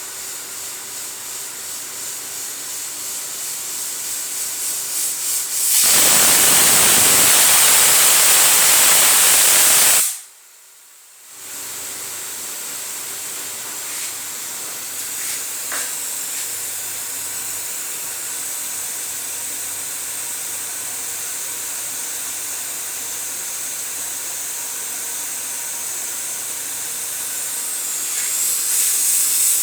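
Pressure cooker venting steam: a steady hiss that builds for several seconds, then a loud whistle blast of escaping steam lasting about four seconds that cuts off suddenly. After a short lull the steady hiss returns and grows louder again near the end.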